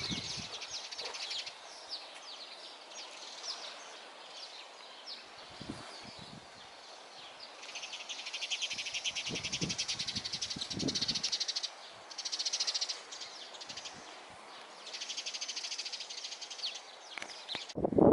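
Small songbirds singing: quick high chirping notes at first, then rapid high trills in several bursts from about eight seconds in. Occasional low wind rumble on the microphone.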